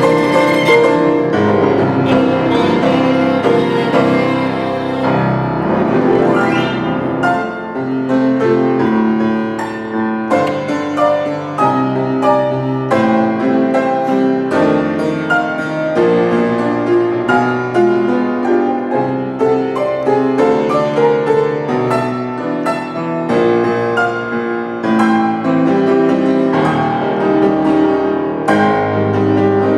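August Förster grand piano playing a solo passage of classical music, with quick, busy runs of notes. A held violin note ends about a second in.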